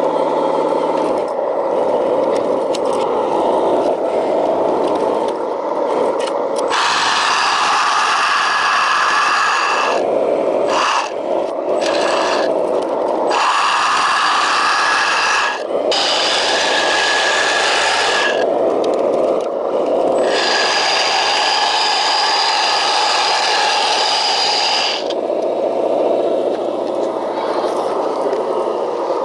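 Whining electric drive of a 1/14-scale RC vibrating road roller working the asphalt patch. The whine shifts in pitch and cuts in and out every few seconds as the machine drives back and forth.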